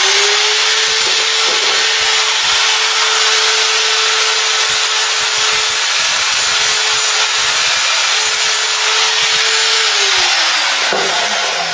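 Handheld rotary power tool running under load, abrading steel to clean the repair panels back to bare metal for spot welding. It spins up at the start, runs steadily, and winds down about ten seconds in.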